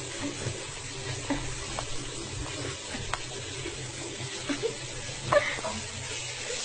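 Bathwater in a filled tub: a steady watery hiss with a few small drips and splashes.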